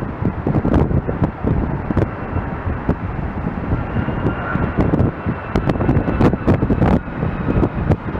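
Strong gusty wind buffeting the microphone, with a faint steady whine of distant jet engines underneath.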